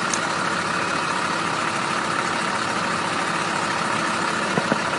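A vehicle engine idling steadily, a constant drone and hum; one faint short tick near the end.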